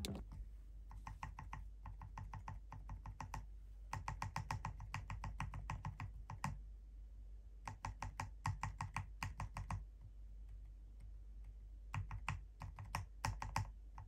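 Runs of quick, light clicks and taps, several a second in bursts with short pauses between, from fingers working on a bare mechanical keyboard plate and PCB.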